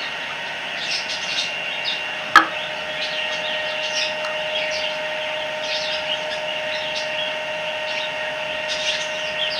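Items from a slime kit being handled and unpacked: light rustling and scraping, with one sharp click about two and a half seconds in, over a steady background hum.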